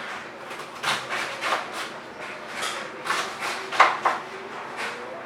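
Kitchen knife slicing through a red cabbage onto a cutting board: a run of irregular crunchy cuts, about eight, the loudest near the end.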